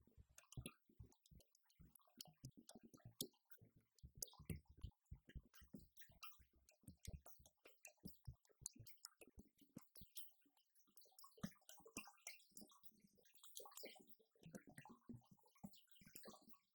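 Drumsticks striking the rubber and mesh pads and cymbal pads of an electronic drum kit, heard acoustically: a quiet, dense run of irregular clicks and dull thuds.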